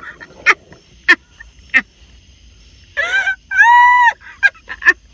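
Young women laughing hysterically in short bursts, then a high-pitched shriek about three and a half seconds in, held for about half a second and rising and falling at its ends.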